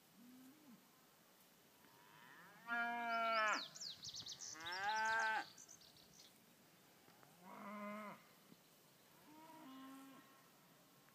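Cows mooing: five long moos, the two loudest about three and five seconds in, a short faint one at the start and two weaker ones near the end.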